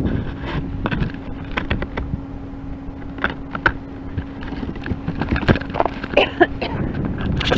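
Handling noise on a small onboard camera's microphone as hands pick it up: irregular clicks, knocks and rubbing against the camera body, thickest near the end, over a steady low electrical hum.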